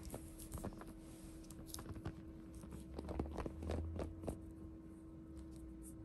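Foil wrapper of a large chocolate egg crinkling and clicking as a hand handles and turns it over. The crackles are irregular and come thickest and loudest about three to four seconds in.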